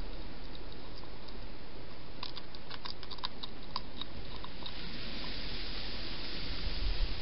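Wild hedgehog crunching food at a feeding dish: a run of small, sharp clicks starting about two seconds in and lasting a couple of seconds, over a steady hiss. A few low thumps come near the end.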